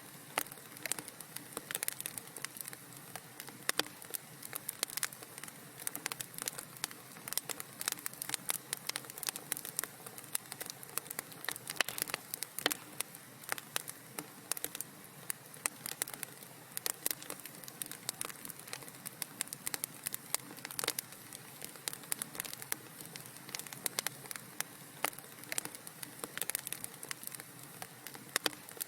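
Wood fire crackling in a fireplace: a steady soft hiss with many sharp pops and snaps at irregular moments.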